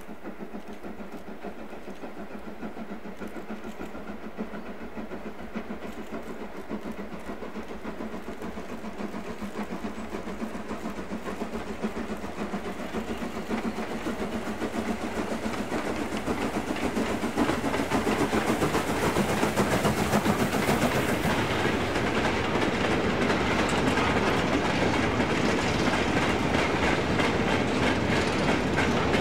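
Urie S15 class 4-6-0 steam locomotive working hard with a train of loose-coupled mineral wagons, growing steadily louder as it approaches and passes. From about halfway through, the wagons clatter and rattle over the rail joints at their loudest.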